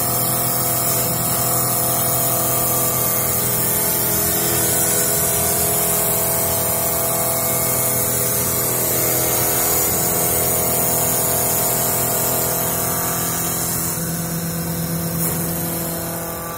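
CNC wood-turning lathe running, with its variable-frequency-driven spindle motor and twin rough and finish cutters shaving a spinning wooden spindle. It makes a steady hum with several constant whining tones under a strong hiss of cutting. The sound eases off a little near the end.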